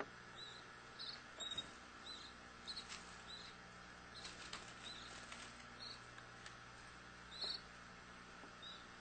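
Young canaries giving short, high peeping chirps over and over at irregular intervals, with a few faint clicks.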